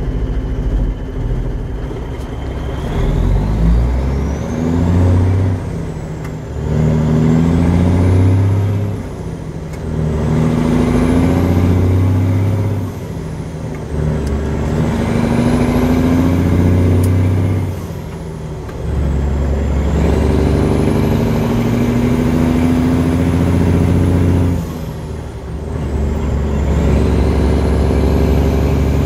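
Peterbilt 359's diesel engine accelerating through several gears: the engine note climbs, drops back briefly at each shift and climbs again. A high whistle rises and falls along with it.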